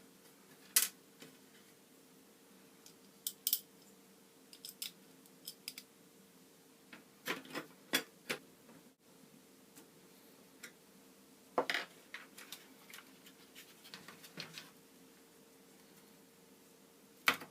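Small metal and plastic parts being handled at close range during reassembly: scattered sharp clicks, clinks and short scrapes, some in quick clusters, over a faint steady hum.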